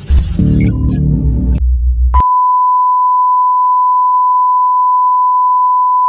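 Bass-heavy music that stops abruptly about two seconds in, followed by a loud, steady, unwavering electronic beep tone that holds on one pitch.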